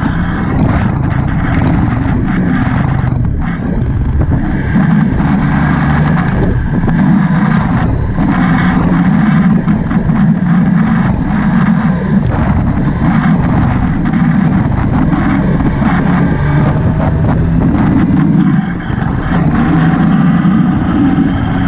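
Motorcycle on the move: steady engine and road noise, with wind rushing over the camera's microphone.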